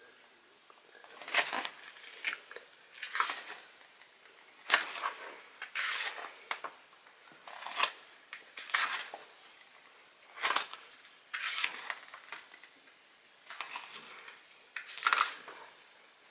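Pages of an album photo book being turned by hand, each turn a short papery rustle, about one a second.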